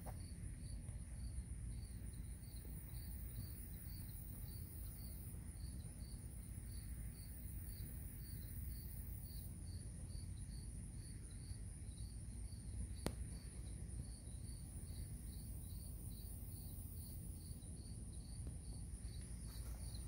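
Background insects chirping: a regular chirp about three times a second over a continuous high-pitched drone, with a low rumble underneath and a single click about two-thirds of the way through.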